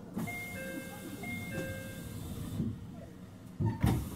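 An electronic two-note chime, played twice in a row over a steady hiss, on a railway platform beside a standing 313 series train. Near the end come two heavy, low thumps.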